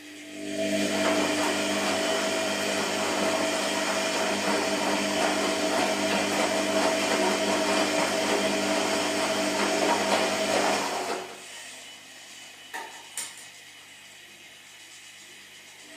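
Washing machine drum turning under its motor with a steady whine. It runs for about ten seconds, then stops in a pause of the cycle, and two short knocks follow.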